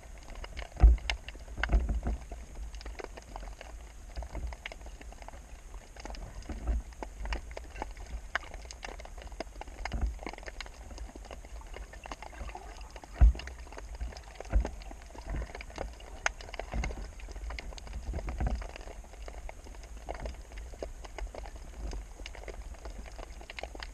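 Irregular clicks and knocks with low thumps over a low rumble, typical of water moving against and around a camera housing during a spearfishing dive.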